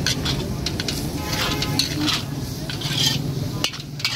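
A metal ladle scrapes and clanks against a large steel wok in quick, irregular strokes as shredded cabbage and vegetables are stir-fried for chow mein. The vegetables sizzle in the hot pan underneath.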